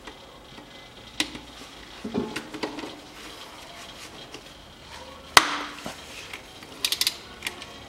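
Metal tool clicks and knocks from a socket wrench on the extension working the transfer case's hex drain plug loose, with one sharp knock about five and a half seconds in and a quick run of clicks near the end.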